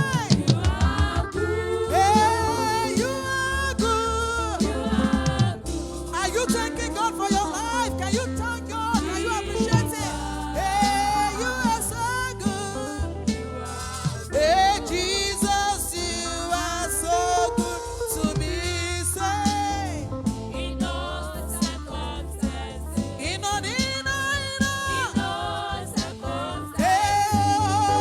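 Gospel worship song: singing voices over a steady bass line and a regular beat.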